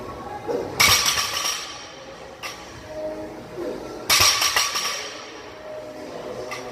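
Loaded barbell set down on a lifting platform twice during deadlift reps, about three seconds apart: each touch-down is a sharp clank of the bar and weight plates followed by a brief metallic rattle.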